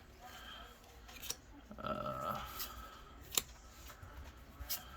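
Yu-Gi-Oh! foil booster pack wrapper being crinkled and torn open, with a few sharp clicks from handling the pack and cards.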